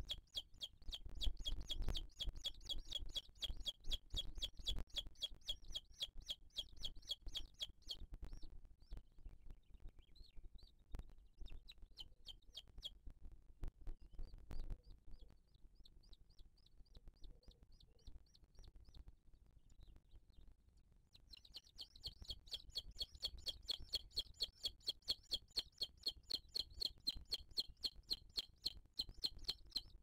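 Booted eagle calling at the nest: a fast series of high, piping notes, about five a second, in a long bout over the first eight seconds and again from about two-thirds of the way through, with sparser, fainter notes between.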